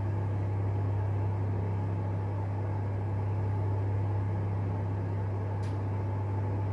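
A steady low hum with a faint hiss and a thin high whine, not changing in level.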